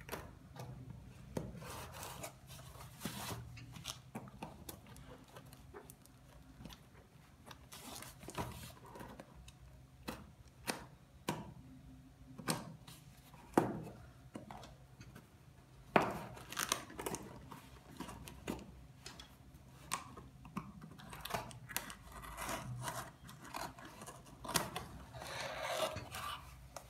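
Cardboard shipping box being opened by hand: scattered sharp clicks and snaps, with scraping, rubbing and tearing of cardboard and packing tape. Two louder snaps come around the middle.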